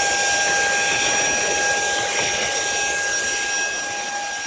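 Cordless handheld vacuum cleaner running steadily, its small motor giving a high whine over rushing air as it sucks up spilled coffee grounds.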